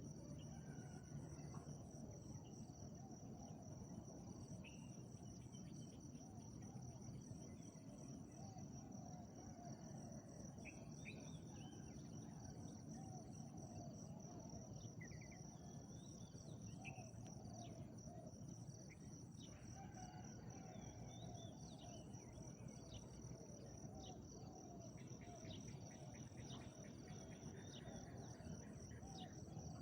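Crickets and other insects droning steadily, one a shrill constant tone with a pulsing trill above it, with faint low cooing of spotted doves repeating underneath.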